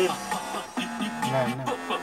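Background music with a voice, playing from a television in the room.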